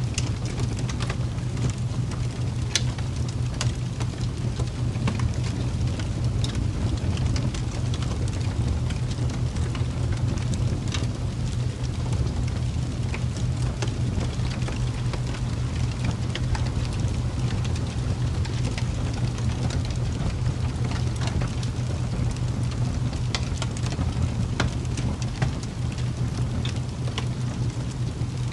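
Steady ambient background track for sleep: a continuous low rumble under an even hiss, with scattered irregular crackles and ticks throughout.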